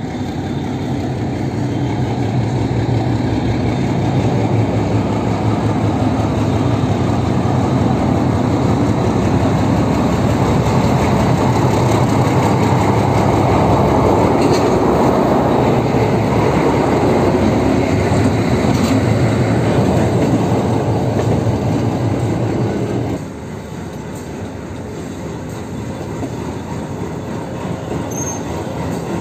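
Two Indian Railways diesel locomotives coupled together passing close by, their engines running loud and steady as they pull the train out. About 23 seconds in the engine sound drops suddenly, leaving a quieter rumble of the train rolling past.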